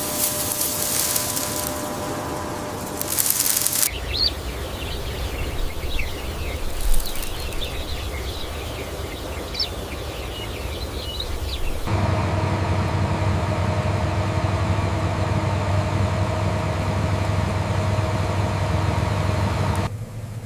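Harvesting machinery in a wheat field, in three abrupt cuts: a machine running with steady whirring tones and hiss, then a low rumble with birds chirping over it, then a combine harvester's engine droning steadily, which fades near the end.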